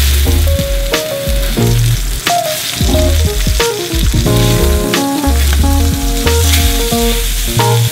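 Seasoned snapper fillets sizzling as they fry in hot oil in a cast iron skillet. Background music with a strong bass plays over the sizzle.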